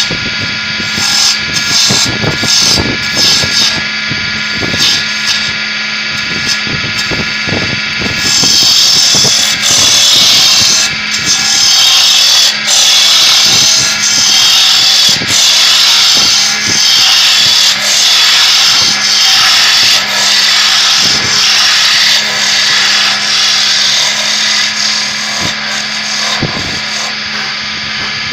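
Wood lathe running steadily with a hand turning tool cutting into a spinning wooden spindle. After some scattered knocks, from about eight seconds in the cutting gives a loud hissing scrape in regular strokes a little over a second apart.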